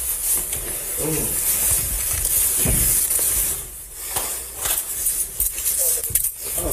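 Scuffle noise on a police body camera: clothing brushing and rubbing against the microphone as officers struggle with a resisting man, with a few short bits of voice.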